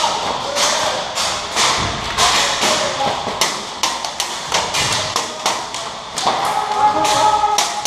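Scattered airsoft gunfire: irregular sharp shots and thuds, several a second, with a voice calling out near the end.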